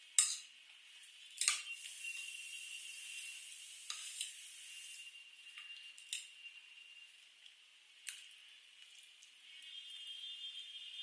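Close-miked eating sounds of spicy noodles and fries: wet chewing and slurping, with about five sharp clicks of utensils against the dish.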